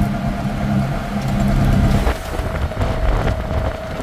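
Auto rickshaw engine running as the vehicle drives along the road, with road and wind noise. Its low, steady note drops away about halfway through and the sound gets a little quieter.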